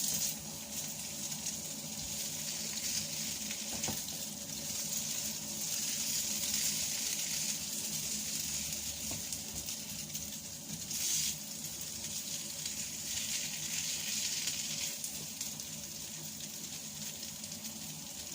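Food sizzling as it is stir-fried in hot oil in a pan: a steady hiss, with a brief louder surge about eleven seconds in.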